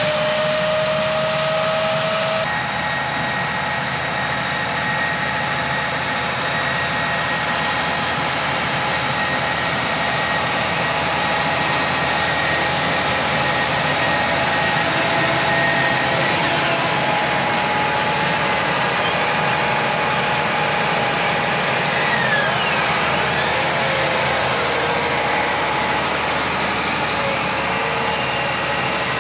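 John Deere track tractor running steadily as it pulls a planter across the field, an engine hum with a steady high whine over it.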